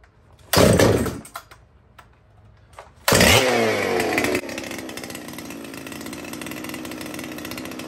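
Dolmar two-stroke chainsaw being pull-started. One pull about half a second in gives a brief burst and dies. The next pull, about three seconds in, catches: the saw runs fast for about a second, then drops to a steady idle.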